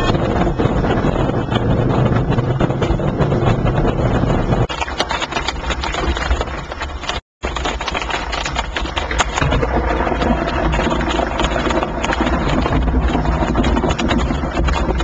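Rain pattering on glass: many small ticks over a steady noise, with a low rumble of wind on the microphone. The sound cuts out for a moment about halfway through.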